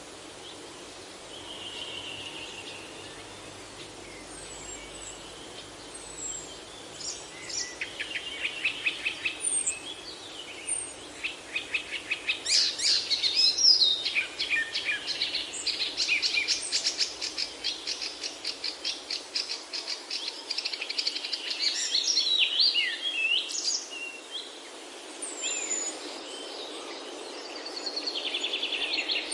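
Several songbirds singing and calling over a steady background hiss, with rapid trills and short chirps that build to a dense chorus through the middle and thin out again near the end.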